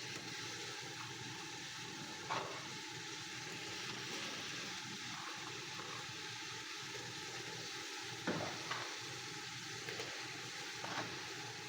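Pumpkin pieces sizzling in hot oil in a cooking pot over a high flame, with a few short knocks, as of a utensil against the pot.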